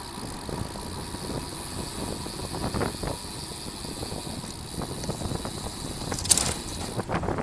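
Steady rumble of wind and road noise from a road bicycle riding at speed, with a short sharp rattle a little after six seconds in.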